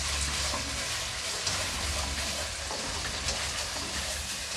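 Green curry paste frying in coconut cream in a non-stick wok: a steady sizzle, with a slotted turner stirring and scraping through it.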